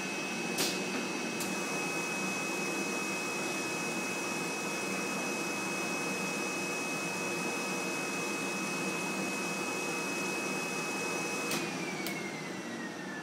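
Vacuum blower of a flat-bed screen printing machine running with a steady hiss and high whine, with a few control-panel switch clicks. Near the end it is switched off: the whine falls steadily as the blower spins down.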